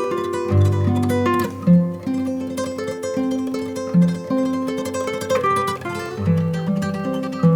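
Background music: plucked acoustic guitar playing a melody with held bass notes.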